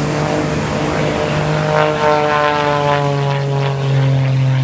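Single-engine propeller aerobatic plane in flight: a steady, loud engine and propeller drone whose pitch sinks slowly through the second half as it moves away.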